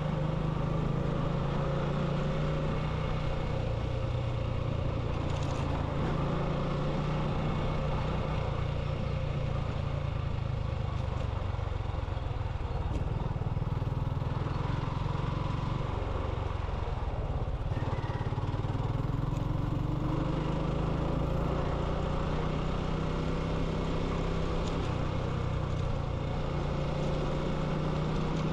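Motorcycle engine running steadily while riding, with road and wind noise. The engine note eases off briefly a little past halfway, then picks up again.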